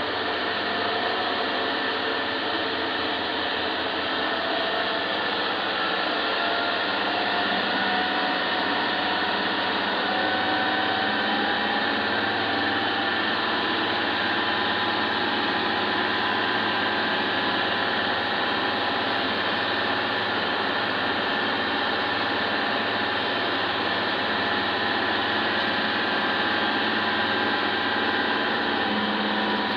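A motorboat's engine running steadily, its pitch and level holding even throughout.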